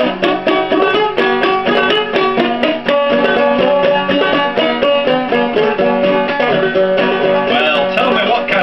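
Five-string banjo played clawhammer style in open G tuning: a steady, rhythmic run of plucked notes and brushed strums carrying the old-time tune.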